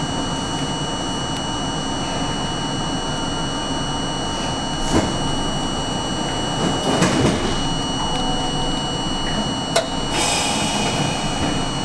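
R42 subway car standing at a station, its onboard equipment giving a steady hum with high whining tones. A few scattered clicks are heard, then a burst of air hiss near the end.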